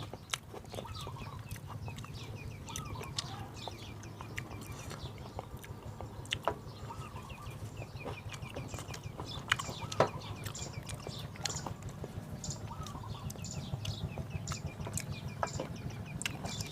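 Chickens clucking in the background over a low steady hum, with a few sharp clicks, the loudest about six and ten seconds in.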